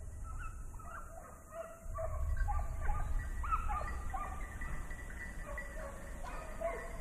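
A pack of hunting dogs baying and barking, several voices overlapping in short repeated calls, the sound of the hounds running a wild boar during a drive hunt. A low rumble on the microphone comes in about two seconds in.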